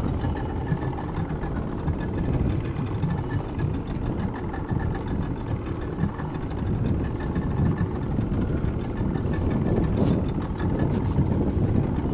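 A small fishing boat's motor running steadily at slow trolling speed.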